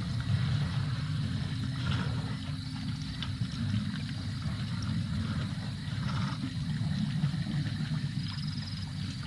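A herd of African elephants at a waterhole: a continuous low rumbling with water sloshing and gurgling, over a faint steady high tone.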